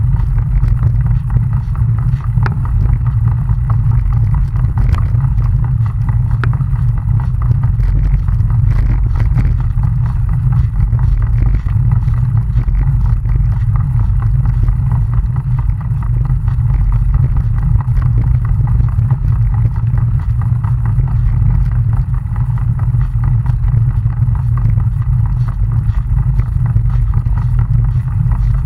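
Wind and road noise on a camera moving at riding speed: a steady, loud low rumble that never lets up.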